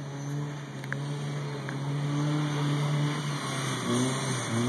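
Rock crawler's engine running and growing louder as the rig comes down the course, its pitch holding steady, then easing off and picking up again near the end.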